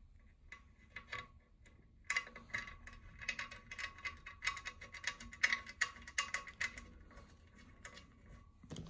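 Light, rapid metallic clicks and ticks of a small brake hanger and its nut being turned by hand onto a bolt on a model locomotive's steel chassis frame, starting about two seconds in.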